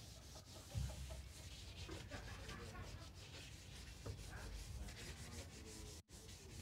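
Sandpaper rubbed back and forth by hand over an epoxy-primed steel van door, a faint, steady scraping as the primer is sanded before painting. A soft low bump comes about a second in.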